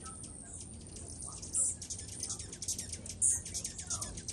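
A crowd of hummingbirds chipping at a cluster of feeders: a dense, rapid stream of short high ticks, with two louder high squeaks, one about a second and a half in and another past three seconds.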